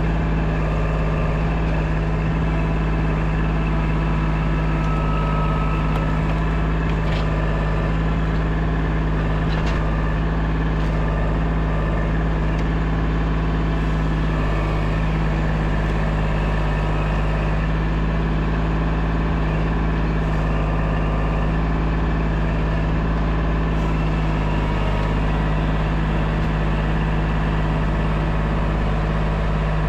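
Kubota compact tractor's diesel engine running steadily at a constant speed, with a few faint clicks over it.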